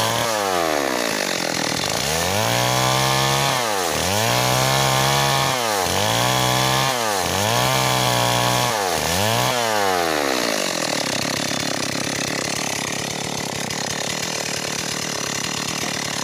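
Stihl MS 381 two-stroke chainsaw ripping lengthwise through a log. Its engine note dips and recovers about every two seconds as the chain loads in the cut. After about ten seconds the clear engine note gives way to a rough, even noise.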